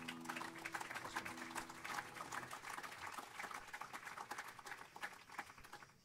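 Audience applauding as the last piano chord dies away in the first half second; the clapping thins out near the end.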